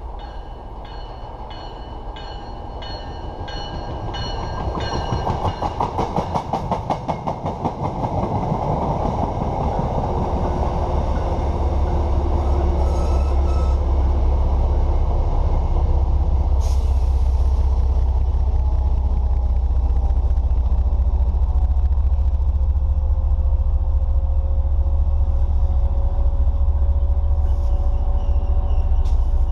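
MBTA commuter rail train of bilevel coaches passing. A fast rhythmic clatter of wheels over rail joints swells about five seconds in, then gives way to a steady low rumble as the train runs by and away. Repeated ringing strokes sound through the first five seconds as it approaches.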